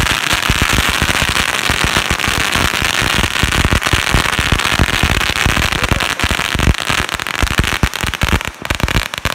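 A 7000-count string of firecrackers going off in a continuous rapid crackle of bangs, thinning to more separate pops near the end.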